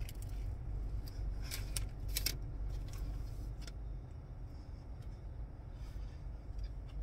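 Low steady rumble inside a car's cabin, with a few faint clicks and crinkles in the first few seconds as someone chews food.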